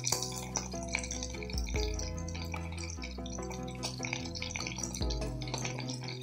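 Background music with a slow bass line, over bacon sizzling inside a closed electric mini waffle iron.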